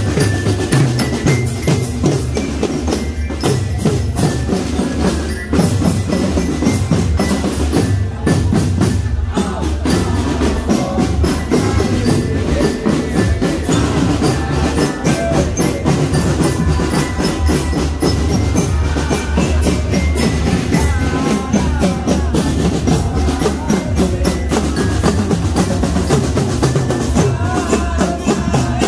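Marching drum band playing continuously: a dense, steady drum rhythm with bell-like mallet tones over it.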